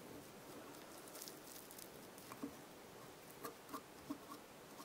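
Faint, scattered ticks and crackles of fingers pushing and handling spun hair and tying thread on a fly hook in a vise, with a few slightly louder soft clicks in the second half.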